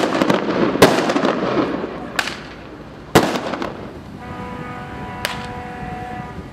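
Firecrackers going off: a string crackling for about two seconds with loud bangs among it, then a few more single sharp bangs. From about four seconds in, a steady held tone sounds underneath.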